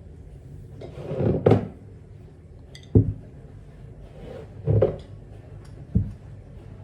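Kitchen cabinets being opened and shut: four dull knocks, the first and third each preceded by a short slide.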